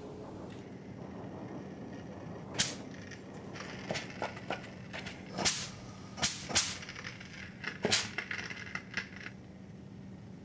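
Steam iron worked against window glass: about five sharp clicks and short puffs, with smaller ticks between them and a thin hiss in the middle stretch, over a steady low hum.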